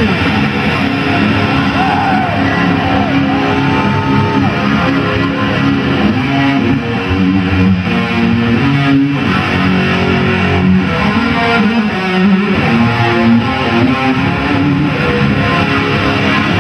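Rock music played on electric guitar through distortion, with sustained notes bent in pitch.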